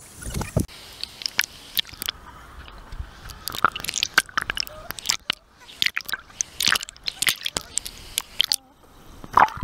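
Swimming-pool water splashing and sloshing against a waterproof camera as it dips under the surface and back up, in many irregular sharp splashes and gurgles.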